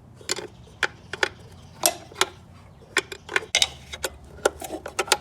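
Irregular light metallic clicks and clinks, about three a second, of a car's clutch master cylinder and its parts being handled and fitted into place.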